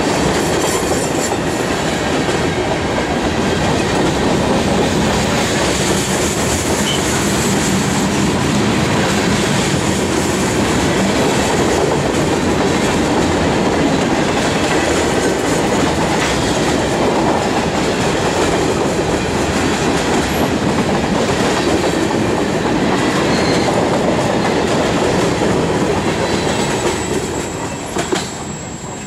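Freight train of covered hopper cars rolling past close by: a steady loud rumble with wheels clattering on the rails. It fades about two seconds before the end as the last cars go by.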